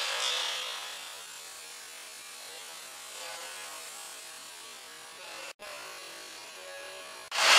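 The noise of a power tool dies away in the first second, leaving a faint steady hiss of shop background. A loud burst of rushing noise starts suddenly near the end.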